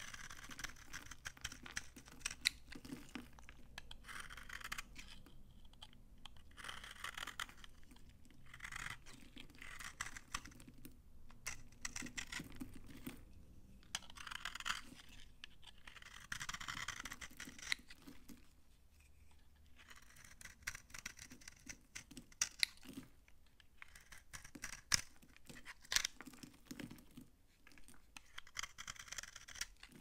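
A knife blade shaving and scraping a bar of old, dried-out vintage soap in repeated strokes, the dry soap crunching as flakes break away, with many sharp little crackling clicks.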